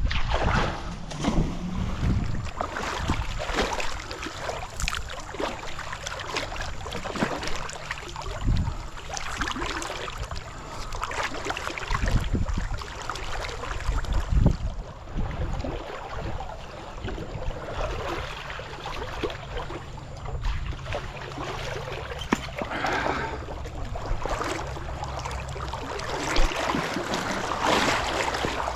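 Water splashing and sloshing as a kayak is moved along a shallow river, with irregular splashes and knocks.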